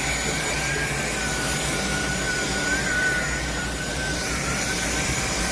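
INTETURE cordless stick vacuum running steadily: a high motor whine that wavers a little in pitch over a rush of air.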